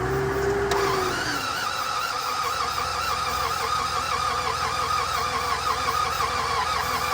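A 1995 BMW 750iL V12 is cranked over on the starter with a steady, even rhythm and does not catch. The mechanic takes the failed start for the engine being flooded with too much fuel.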